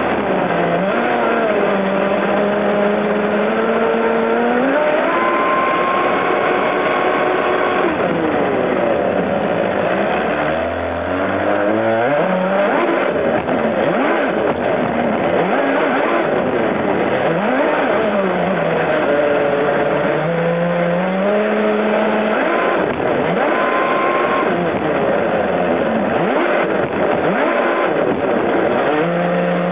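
Electric motor of a radio-controlled catamaran racing boat whining, its pitch rising and falling with the throttle, over the rush of water and spray against the hull. About eleven seconds in, the whine drops low and then climbs again.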